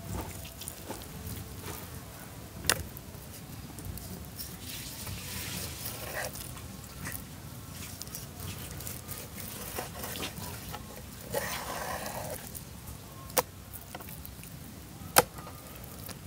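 Chef's knife slicing raw beef on a wooden cutting board: soft cutting and handling sounds, with a few sharp taps of the blade on the board, over steady low background noise.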